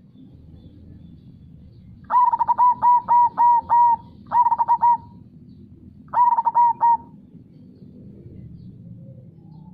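Zebra dove (perkutut) singing its cooing song: three phrases of rapid repeated notes, about two, four and six seconds in, the first the longest, over a steady low rush of river water.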